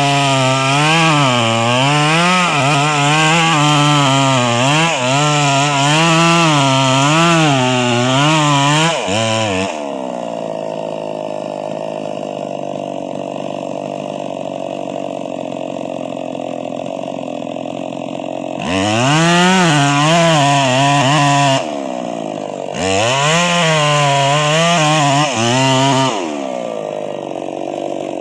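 Two-stroke chainsaw with a 22-inch bar running at high revs, its pitch wavering up and down as it cuts under load. About nine seconds in it drops to a lower, steady speed. It revs high again twice, then falls back to the lower speed near the end.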